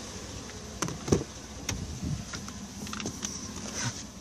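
Steady hum and hiss of a GMC Yukon Denali's cabin climate fan with the engine idling, broken by a handful of scattered clicks and knocks, the loudest about a second in.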